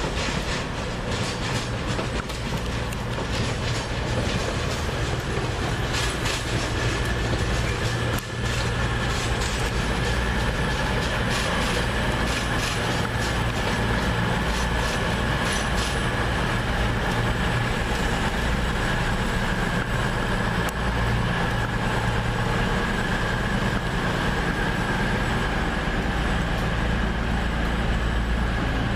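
CrossCountry Voyager diesel-electric train running through the station, its engines droning steadily. For the first half its wheels click repeatedly over rail joints and points, and a steady high whine comes in about halfway.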